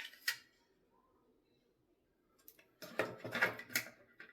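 Plastic toilet fill-valve parts being handled: a single click, a short pause, then a quick run of clicks and knocks near the end.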